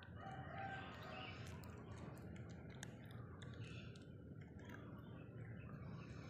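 Cat chewing dry kibble: faint, irregular crunching clicks, several a second.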